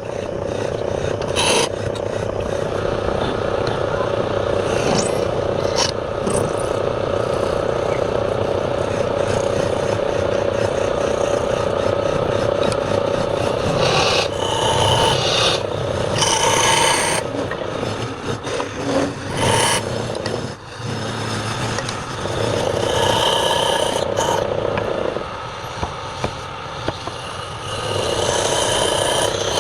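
A wood lathe running while a turning tool scrapes and cuts the spinning wood: a continuous rasping scrape over a steady hum, with several brief higher-pitched squeals of the tool against the wood.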